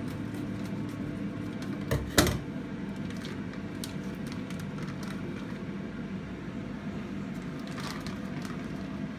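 Plastic sous vide bag being handled and opened over a kitchen sink: crinkling and small clicks, with a sharp double knock about two seconds in, over a steady low hum.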